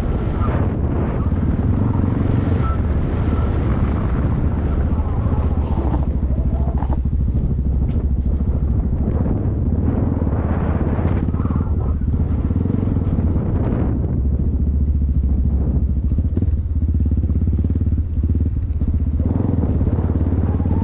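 Yamaha XT225 dual-sport motorcycle's single-cylinder four-stroke engine running while riding off-road, its sound swelling and easing several times as the throttle is worked.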